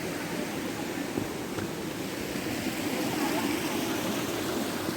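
Steady rush of flowing water, an even noise with no clear rhythm.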